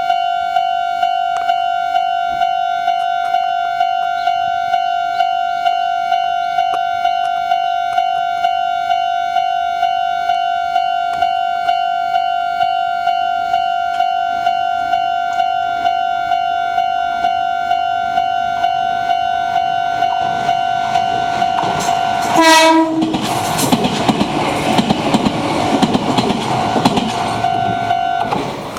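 A Japanese level crossing's electronic warning bell rings steadily at about two strokes a second. About 22 seconds in, a Meitetsu 6500 series electric train sounds a short horn blast and runs through the crossing with a rumble of wheels on rail. The bell stops near the end as the train clears the crossing.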